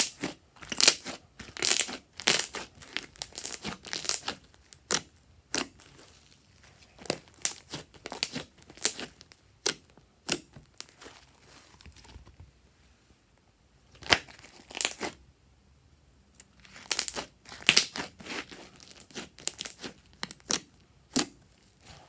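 Fluffy slime being pressed and stretched by hand, with trapped air pockets popping and crackling in irregular clusters of sharp clicks, easing off for a couple of seconds around the middle.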